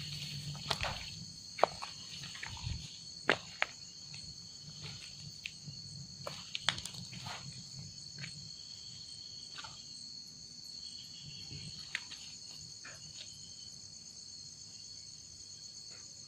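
Night-time insect chorus: several steady high-pitched trills running on together, with scattered sharp clicks and knocks, most of them in the first few seconds.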